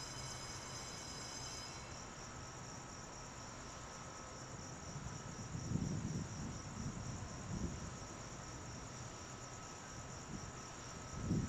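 Insects chirring steadily in a high, continuous shimmer. A few soft low rumbles come about halfway through, and louder low rumbling begins at the very end.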